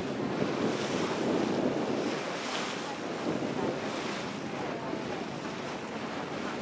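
Wind buffeting the microphone in uneven gusts, over the rush and splash of choppy water past a moving boat.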